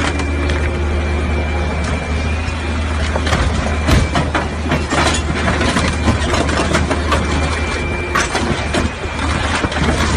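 A scrap-yard grapple machine runs with a steady low drone while its steel claw crushes the body of a Ferrari 458, giving repeated sharp metal cracks, crunches and clatter, the loudest about four seconds in.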